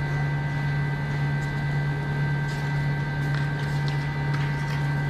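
Steady low machine hum, unchanging throughout, with a few faint high steady tones above it and scattered light clicks.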